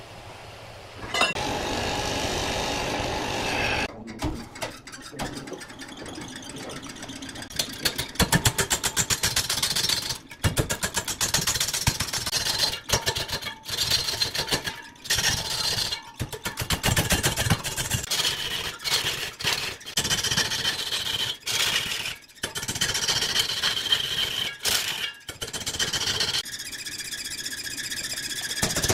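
Power woodworking tool cutting into wood with a rapid rattling clatter, in bouts broken by short pauses.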